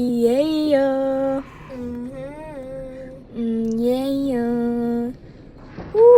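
A female voice singing three long held notes, each about a second and a half with a small rise in pitch partway through, with short gaps between them. Near the end a shorter, higher vocal sound begins.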